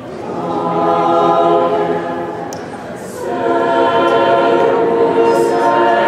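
Mixed choir of men's and women's voices singing unaccompanied in sustained chords. One phrase fades out about halfway through, and a fuller, louder chord comes in just after.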